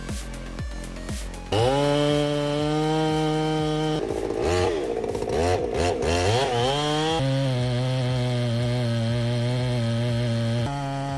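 Two-stroke chainsaw running at high revs. It sets in abruptly about a second and a half in, holds a steady pitch, then drops and rises in pitch several times in the middle, as when the engine bogs under load and the throttle is worked, before holding steady again. Background music with a beat comes before it.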